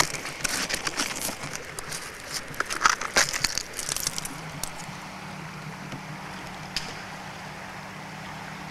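Crackling and scratching of fingers rubbing at crumbling, weathered concrete, with small bits breaking away, for about the first four seconds. It then gives way to a quieter steady low hum.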